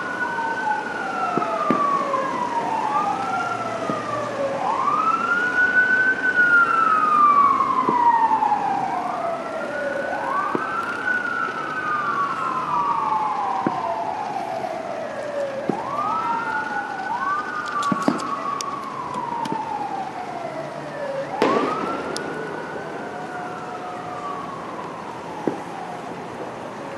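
Several fire truck sirens wail at once, out of step with each other. Each wail rises quickly and then falls slowly over about four seconds.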